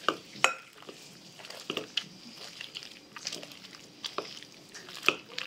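Metal hand masher pounding fried eggplant in a glass bowl: irregular soft squishing strokes with sharp knocks as the masher head strikes the glass, the loudest near the start and about five seconds in.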